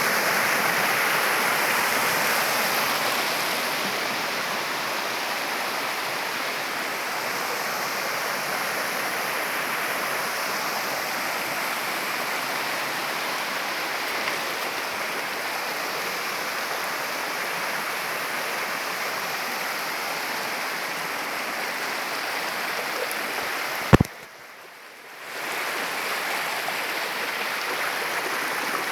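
Waterfall rushing steadily, a dense even roar of falling water. Near the end a single sharp knock is followed by about a second of muffled near-quiet before the rush comes back.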